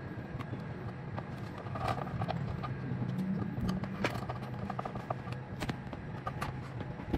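Small clicks and taps of wires and a screwdriver being handled at an electric motor's terminals, scattered through the middle and later part, over a steady low background hum.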